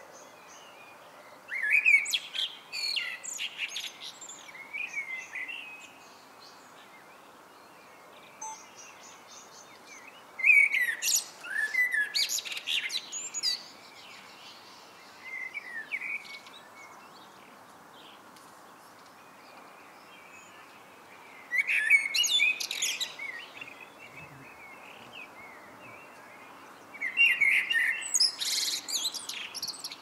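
Male Eurasian blackbird singing: four fluting phrases several seconds apart, each breaking into higher, thinner twittering notes at its end.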